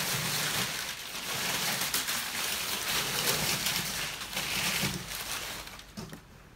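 Crumpled brown kraft packing paper rustling and crackling as it is pulled out of a cardboard shipping box, fading out near the end.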